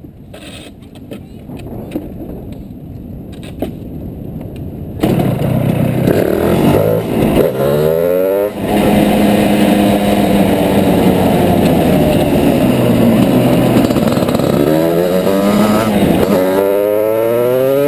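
Go-kart engine, quiet for the first few seconds, then suddenly loud about five seconds in and revving up with a climbing pitch. It eases off around eight seconds, runs steadily at speed, and revs up again near the end.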